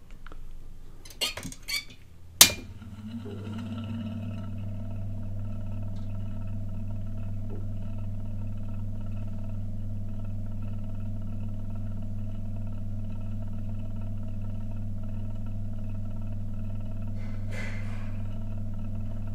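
Garrard 202A gramophone's electric motor started with a few clicks, the loudest about two and a half seconds in. It then spins the turntable platter up and runs with a steady hum, turning at close to 78 rpm.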